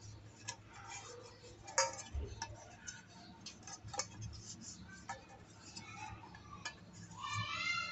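Light clicks and taps of an aluminium cake tin being handled and rubbed with oil by fingers, a few sharp knocks against the cutting board. A short rising, meow-like call comes near the end.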